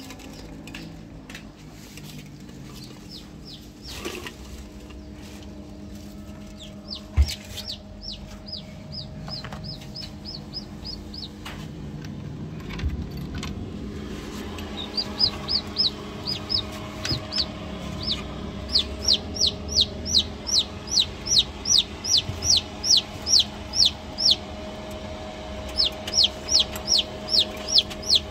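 Chicks peeping: short, high, downward-sliding peeps, scattered at first and then in a steady run of about two a second through the second half. A steady hum lies under them, and there is a single sharp knock about seven seconds in.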